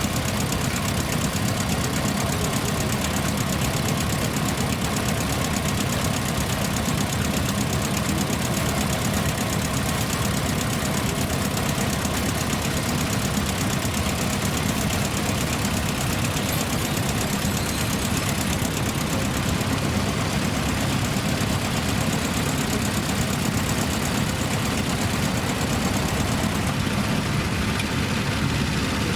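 Tractor engine running steadily at an even level.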